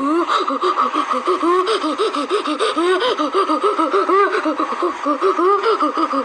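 A sneeze recording copied and stacked on itself many times over, heard as a dense, unbroken chatter of short, overlapping rising-and-falling vocal yelps, several each second.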